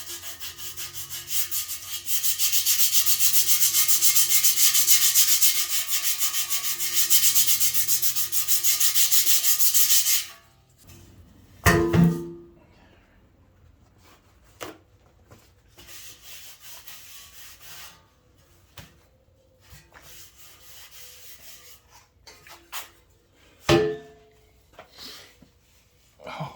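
80-grit sandpaper scraping in quick, rapid strokes on the rusty steel tubes of an exhaust header, taking off rust and pitting. It stops abruptly about ten seconds in, followed by a few knocks.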